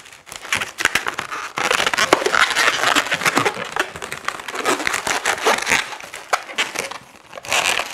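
Latex modelling balloons rubbing and squeaking against each other and the hands as they are tied off and twisted, a dense run of crinkly squeaks and crackles. It eases briefly near the end, then comes one more burst.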